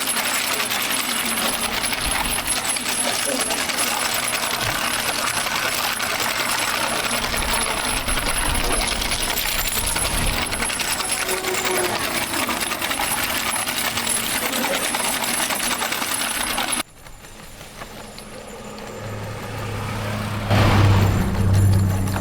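Steel ball-bearing wheels of a wooden firewood cart rolling over pavement with a dense, steady metallic rattling and grinding. It cuts off abruptly about 17 seconds in, and a low hum grows louder near the end.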